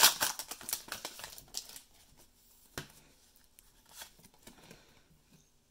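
Foil booster-pack wrapper crinkling as the cards are pulled out of the freshly opened pack, for about two seconds, then quieter handling of the cards with a single sharp tap a little before the three-second mark.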